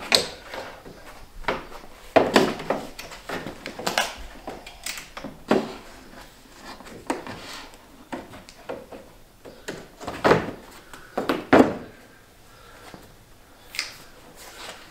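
Volkswagen Beetle door trim panel being hung on the door and pressed into place: an irregular string of knocks, clicks and scraping of the panel against the door, the loudest knocks about two-thirds of the way through.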